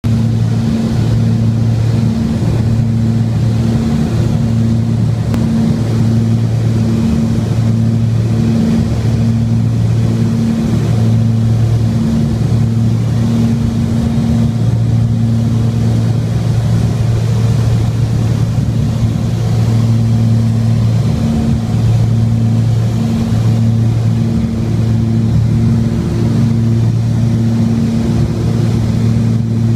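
Light propeller aircraft's engine and propeller droning steadily, heard from inside the cockpit.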